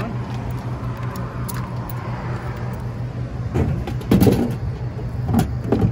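A steady low mechanical hum, with louder rumbling and clunking noises about two-thirds of the way in and again near the end.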